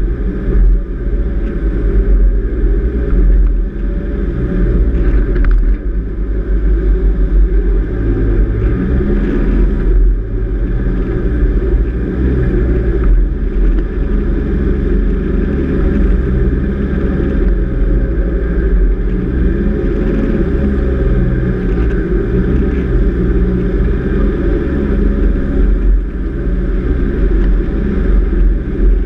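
Four-wheel-drive vehicle driving steadily along beach sand: a constant engine drone with a heavy low rumble from the engine and tyres.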